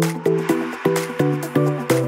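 Background electronic dance music with a steady beat and a repeating bass line.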